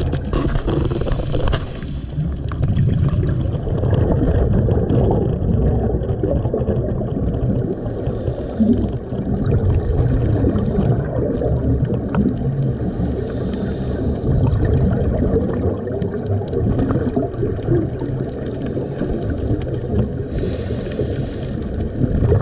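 Underwater ambience recorded at a scuba dive: a steady low rumble of moving water, broken four times by short hissing bursts of bubbles from scuba divers' exhalations.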